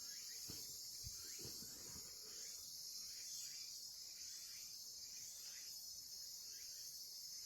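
Steady, high-pitched insect chorus, with a faint falling chirp repeating about once a second and a few soft knocks in the first two seconds.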